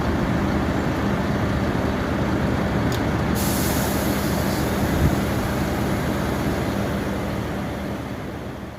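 A vehicle engine running steadily with a low hum, fading out near the end.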